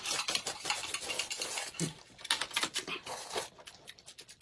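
Noodles being slurped with a long hissing draw, then chewing and chopsticks clicking against plates.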